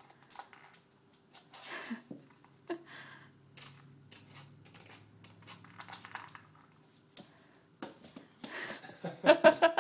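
German shorthaired pointer puppy pawing and mouthing a door stop: scattered clicks, taps and scratchy rustles. Near the end comes a short, loud, pulsing vocal outburst from the puppy.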